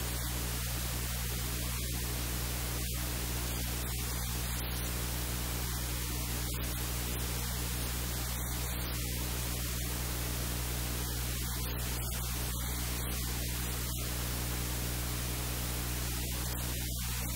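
Steady static hiss over a low, even hum, with no speech or kitchen sounds standing out.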